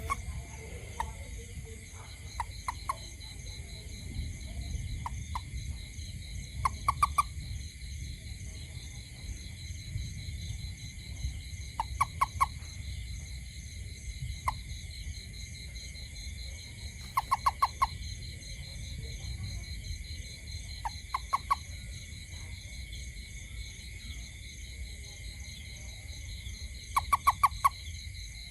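A toad calling in short bursts of several quick croaks, repeated every few seconds. Behind it, insects trill steadily at several high pitches.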